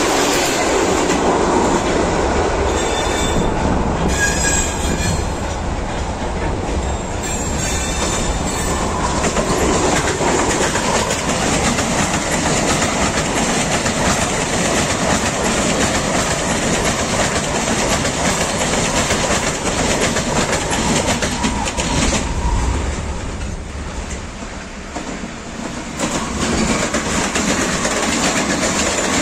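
Electric multiple-unit commuter trains (EP2D, then EG2TV 'Ivolga') passing close by: a steady rumble of wheels on rail with clickety-clack over the rail joints. A few high wheel squeals sound about three to five seconds in. The sound eases off for a few seconds near the end, then swells again as the next train passes.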